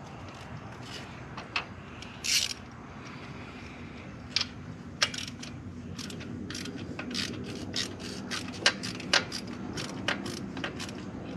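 Hand socket ratchet clicking in short, irregular strokes while the oil catch can's fasteners are loosened, with a brief metal scrape about two seconds in. The clicks come faster and closer together in the second half.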